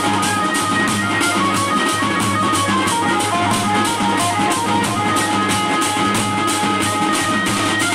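Gondi dhemsa folk dance music: a Casio electronic keyboard plays a melody over a fast, steady drum beat.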